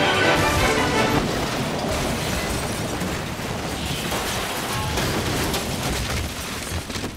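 A bar of music that stops about a second in, then the long rumble of a building collapsing in a demolition, slowly dying away.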